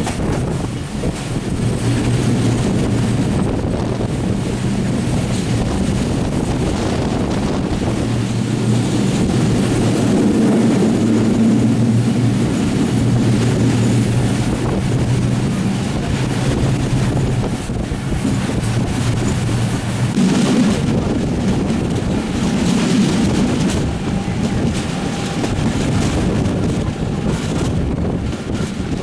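Passenger train running at speed, heard from on board: a steady low hum and rumble with wind rushing over the microphone.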